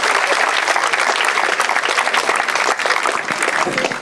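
Audience clapping and applauding steadily, dying away near the end.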